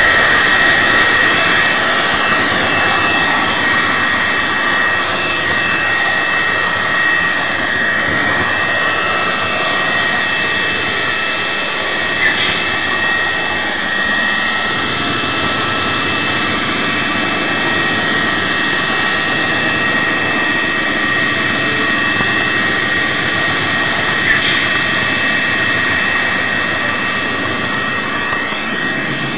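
Model Class 66 locomotive running with its LokSound decoder's sampled EMD diesel engine sound, mixed with the steady rumble and whine of the model train's wheels and motor close to the microphone. Two faint clicks come about a third and about four-fifths of the way through.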